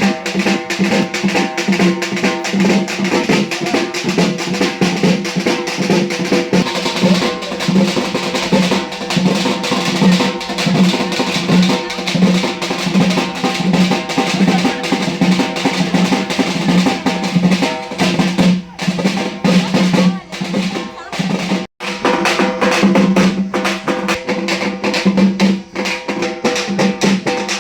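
Fast, continuous drumming with a steady held tone sounding over it, dropping out for a moment a little after twenty seconds in.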